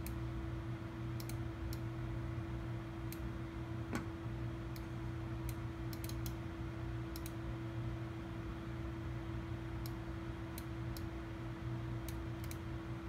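Light, irregular clicks of a computer mouse as the on-screen model is turned, a few at a time with gaps, over a steady background hum with a constant low tone.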